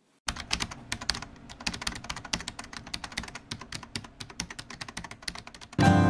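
Rapid, irregular clicking that starts about a quarter second in and runs for roughly five and a half seconds. Music cuts in just before the end.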